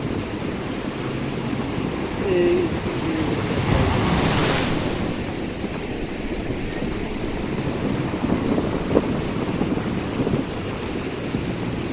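Sea waves washing on the shore, with wind buffeting the microphone; one wave rushes in louder about four seconds in.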